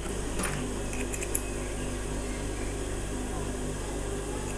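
Steady electric hum of an industrial sewing machine's motor running idle between seams, with a few light clicks about a second in.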